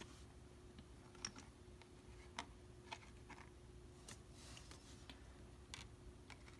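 Near silence broken by about half a dozen faint, scattered clicks and taps of cards being handled and straightened on a table, with a soft brushing sound in the middle.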